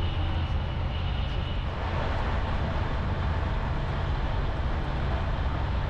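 Steady rumble and rushing noise of the ONCF RGV 2N2 'Al Boraq' double-deck high-speed train running at around 320 km/h, heard inside the passenger car. A faint high whine sits over it for the first second or two.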